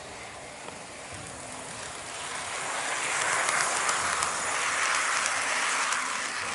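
HO-scale model freight train, an EF81 electric locomotive pulling Koki 50000 container flat cars on KATO Unitrack, rolling past close by. Its wheels make a hissing rolling noise with fine ticks over the rail joints, growing louder about two seconds in and fading near the end.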